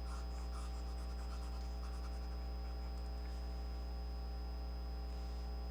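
Steady low electrical hum with a thin high whine, and faint scratching of writing during the first couple of seconds.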